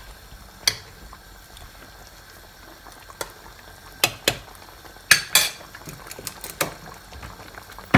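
Chicken curry simmering in a frying pan, a steady soft bubbling, while a spoon stirs it and knocks sharply against the pan about ten times, mostly in the second half.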